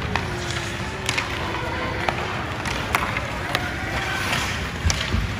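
Ice hockey play: sharp clacks of sticks and puck, about eight scattered through the few seconds, over a steady murmur of rink noise with a voice calling out faintly.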